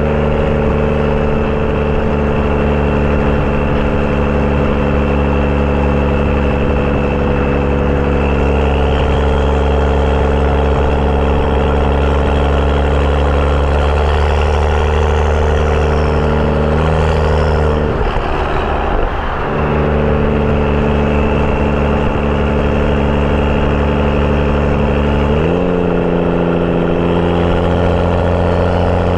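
BMW 335i's N55 turbocharged inline-six, breathing through a catless downpipe and M Performance exhaust, droning steadily under way. The note breaks up briefly a little past the middle, then climbs in pitch twice as the revs rise near the end.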